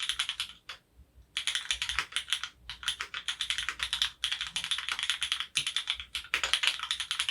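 Typing on an F1-8X gasket-mount mechanical keyboard with lubed, retooled Cherry MX Black linear switches on an aluminium leaf-spring plate, with GON foam damping fitted. Fast runs of keystrokes, with a short pause about a second in.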